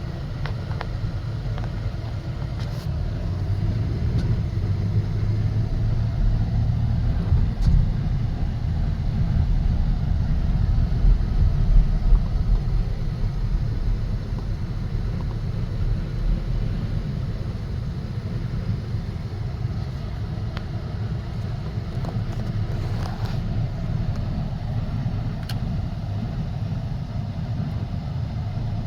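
A car being driven, heard from inside: a steady low rumble of engine and tyre noise.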